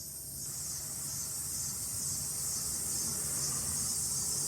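A steady high-pitched hiss, with a faint low rumble beneath it.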